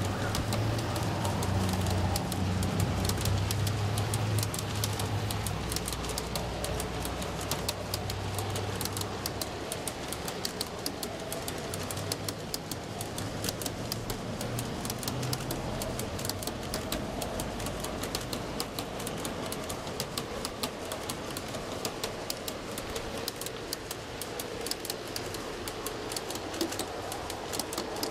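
A long G-scale model freight train on steel wheels rolling past on garden-railway track, with a dense, fast clicking and rattling of wheels over the rails. A low hum is strongest in the first few seconds.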